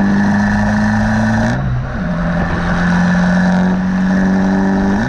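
2021 Abarth 595 Competizione's turbocharged 1.4-litre four-cylinder accelerating through its Record Monza exhaust. The note climbs, drops about a second and a half in as it shifts up, then climbs again in the next gear.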